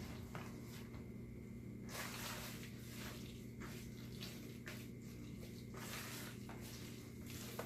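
A spoon stirring a thick, sticky mixture of sugar, molasses, ketchup and barbecue sauce, making faint, irregular wet squishing strokes.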